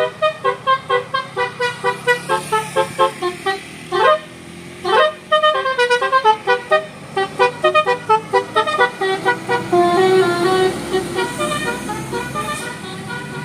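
Bus 'telolet' multi-tone air horn playing a fast tune of short honked notes, with two rising swoops about four and five seconds in, then longer held notes towards the end.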